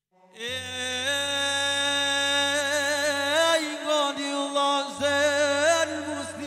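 A man singing an Albanian ilahi into a microphone: one long, wordless melismatic line with wavering ornaments, starting abruptly. Beneath it is a low steady drone that drops out about three and a half seconds in and returns about five seconds in.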